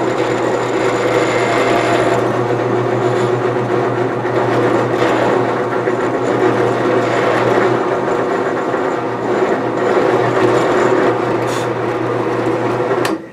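Benchtop drill press motor running steadily while its bit drills a rivet hole through a knife handle scale; the sound cuts off suddenly near the end.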